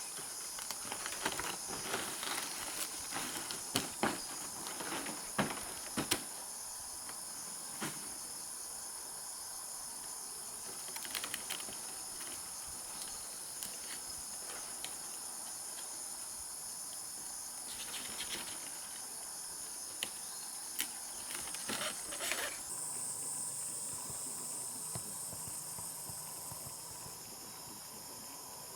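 Insects chirring in a steady high-pitched chorus, with scattered light clicks and knocks in a few short clusters.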